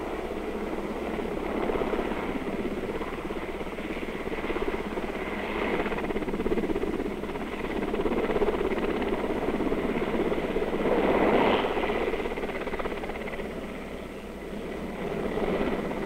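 Sikorsky S-61L twin-turbine helicopter in flight: a steady rush of rotor and engine noise that swells and eases in slow waves, loudest about two-thirds of the way through.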